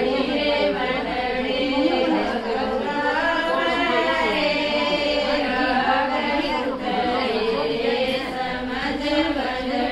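A group of women singing a Haryanvi folk song together, unaccompanied, in long held notes.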